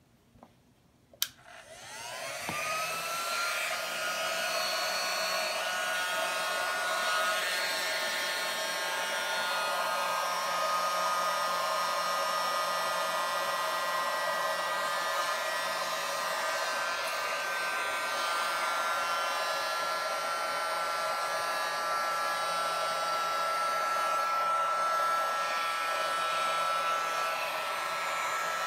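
Small electric air pump of a Wubble Bubble ball clicks on about a second in, spins up with a rising whine, then runs steadily, blowing air into the ball to inflate it.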